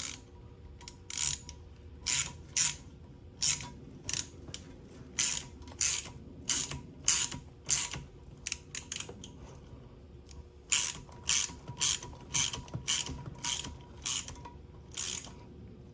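Ratchet wrench clicking in short, uneven strokes with a brief pause partway through, tightening a valve spring compressor to compress a valve spring on a 454 big-block cylinder head.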